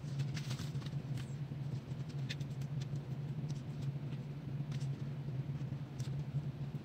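Faint, scattered scratches and taps of wooden toothpicks on black-painted boards, scratching and dotting lines into the paint, over a steady low hum.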